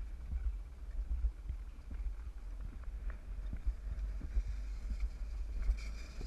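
Alpine slide sled running down the track: a steady low rumble with irregular knocks as it rides over the track, and wind noise on the microphone building near the end.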